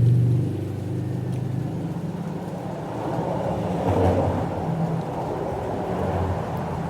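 An engine running steadily, a low hum whose pitch shifts slightly a few times.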